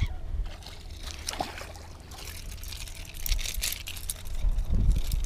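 A hooked Moses perch splashing at the water's surface as it is reeled in, the splashing growing from about three seconds in.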